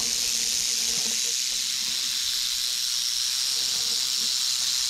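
Timber rattlesnake rattling its tail: a steady, unbroken high buzz with no let-up, the snake's warning.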